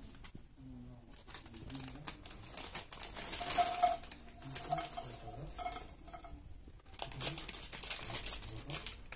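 Snack bag crinkling as Cheetos Poffs puffs are shaken out and fall onto a clay plate, with light rustles and small taps. It comes in two louder spells, about three seconds in and again about seven seconds in.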